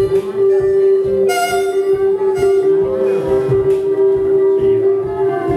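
Live improvised ambient noise music from a band with electric guitar, keyboard and electronics: one steady drone note is held throughout, other sustained tones come and go above it, and low irregular throbs sit underneath.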